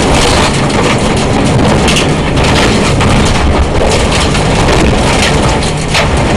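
Rally car driven hard on a gravel stage, heard from inside the cabin: loud engine and road noise with frequent short clatters from the gravel.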